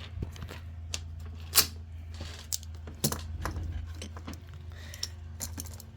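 Scattered light clicks and taps of small hard objects being handled, one sharper click about a second and a half in, over a steady low hum.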